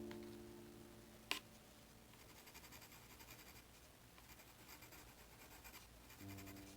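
Pen tip drawing on paper: faint rapid scratching of short strokes. A soft piano chord fades at the start, there is a single sharp click about a second in, and another piano chord comes in near the end.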